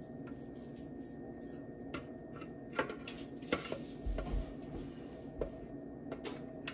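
Silicone spatula scraping a wet batter mixture out of a plastic food processor bowl, with irregular clicks and knocks as the spatula and the processor blade hit the bowl, over a low steady hum.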